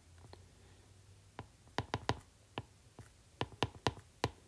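Stylus tapping on a tablet screen while handwriting: about ten short, sharp, irregular clicks, closer together in the second half.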